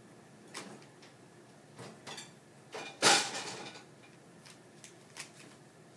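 Plastic Rubik's Cube being twisted by hand: a few short clicks and clacks of the layers turning, with a louder clatter about three seconds in.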